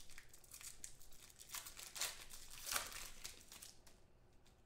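Trading cards and their plastic packaging being handled: irregular crinkling and rustling, loudest about two seconds in and again just under a second later.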